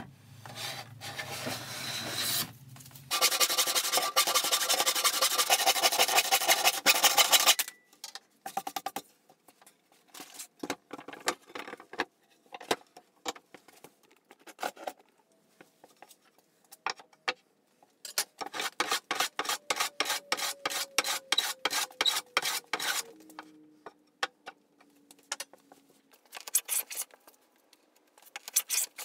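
Hand plane shaving the edge of a spruce board: one long, loud rasping stroke near the start, then runs of short, quick scraping strokes.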